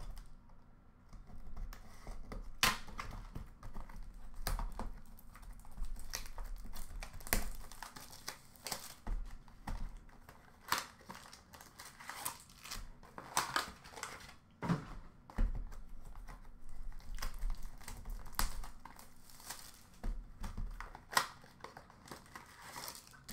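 A sealed trading-card box and its packs being cut and torn open by hand: irregular crinkling and tearing of plastic pack wrappers, with sharp snaps and clicks of cardboard and cards.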